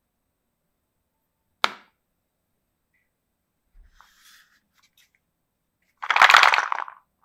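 Wooden toy food being handled in its wooden crate: a single sharp wooden click as a piece is set in, a few faint handling noises, then about a second of louder rough scraping near the end as the crate is moved on the table.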